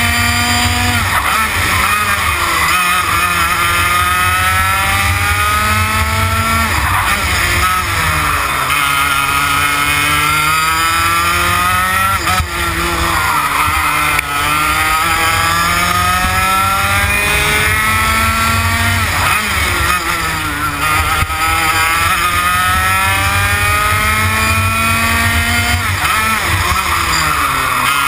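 TKM BT82 two-stroke kart engine lapping at full throttle: its pitch climbs steadily along each straight and drops sharply when the throttle is lifted for a corner, every five or six seconds.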